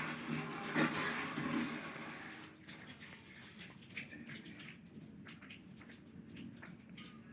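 Squirrel chirping: a strong sharp call about a second in over a steady hiss, then fainter short chirps scattered through the rest.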